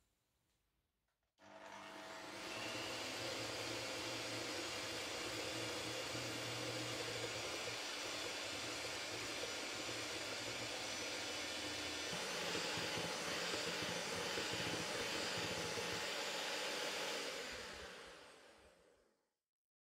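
Russell Hobbs electric hand mixer whisking egg whites and sugar in a glass bowl, beating them into meringue. It starts about a second and a half in and runs steadily, its hum shifting in pitch about twelve seconds in, then fades out near the end.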